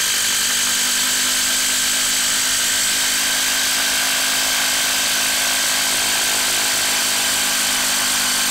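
DeWalt DCF890 20V XR impact wrench, converted to a 1/4-inch hex anvil, impacting steadily under load as it drives a long screw into wood.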